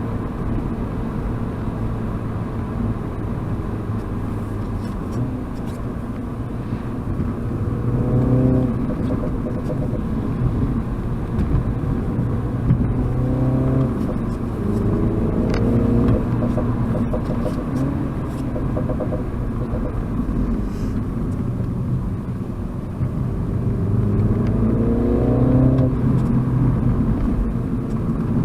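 Mini John Cooper Works F56's turbocharged four-cylinder engine pulling under acceleration on the road, its pitch rising several times and dropping back between, over steady road and tyre noise.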